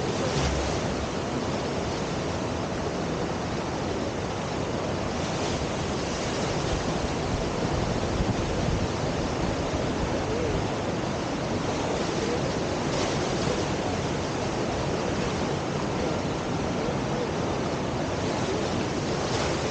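Steady rushing whitewater of a river surf wave, the river pouring over the standing wave.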